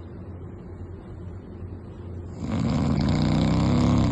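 A man snoring in his sleep: a quiet breath, then about two and a half seconds in a loud, pitched snore lasting nearly two seconds, in the same rhythm as the snore just before. The ENT doctor takes his heavy snoring, with broken, unrefreshing sleep, as nocturnal choking (obstructive sleep apnea).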